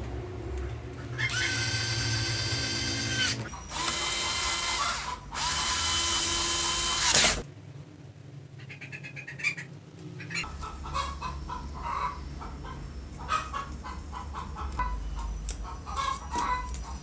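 Bosch cordless screwdriver motor whining in three bursts of about one and a half to two seconds each, driving screws into a drill's housing. After that come faint clicks and rustling as a label's backing paper is handled.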